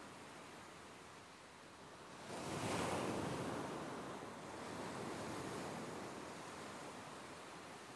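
Ocean waves breaking on a beach: a wave surges in about two seconds in and washes back, then a smaller one follows around five seconds and fades.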